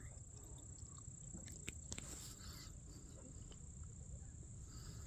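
Insects, likely crickets, trilling steadily in the grass as one continuous high-pitched buzz, with a low rumble underneath and a few faint clicks.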